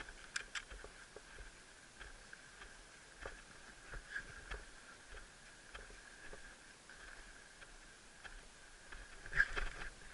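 Footsteps crunching on a sandy dirt trail, with scattered small clicks and ticks from brush and carried gear, over a faint steady high tone. A louder cluster of clicks comes near the end.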